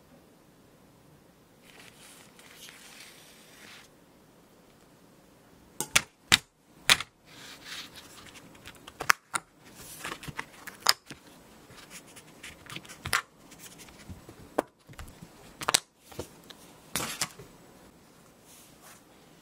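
Sharp clicks and clacks, a dozen or so scattered over about ten seconds, with light rustling between them: thin set chocolate bars being released from a hard plastic mould and set down on a wooden board.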